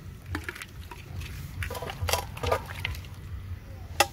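Washed, chopped raw goat meat and bone pieces dropped by hand into a clay pot: a run of soft, wet, irregular patters as the pieces land on one another, with one sharper knock near the end.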